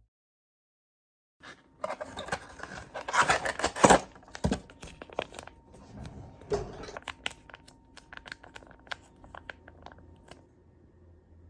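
Crinkling and rustling, as of plastic packaging being handled and torn, with scattered sharp clicks and knocks. It is loudest about two to four seconds in and thins out to light ticks near the end.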